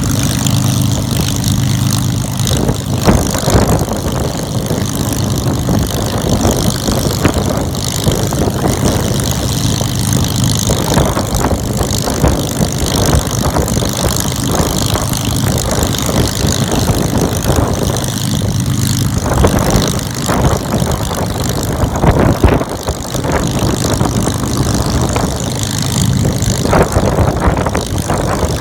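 The Rolls-Royce Merlin V12 of a Supermarine Spitfire Mk VIII running on the ground, its propeller turning. The engine runs loud and steady, with small rises and dips in level.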